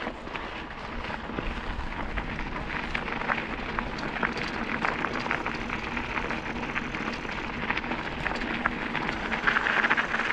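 Bicycle tyres rolling over a loose gravel track, a steady crunch made of many small irregular ticks over a low rumble.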